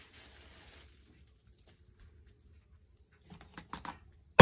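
A metal blade clicking and scraping in a plastic cup of Satanite refractory mix as it is stirred: mostly quiet, a few light taps, then a sharp knock with a short ring at the very end.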